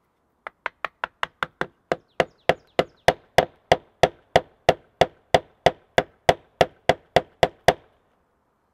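Wooden dowel being hammered into a drilled hole in a timber post with a mallet: about two dozen wooden knocks. They are quicker and lighter at first, then louder and steady at about three a second, and stop shortly before the end.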